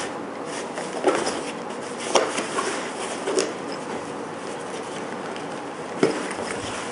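A nylon first-aid kit pouch being handled: fabric rustling with a few short, sharp clicks and taps as it is tipped onto its side and its flap is pulled back.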